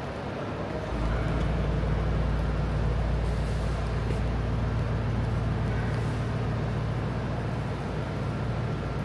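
A vehicle engine running steadily with a low, even rumble. It sets in suddenly about a second in and cuts off abruptly at the end.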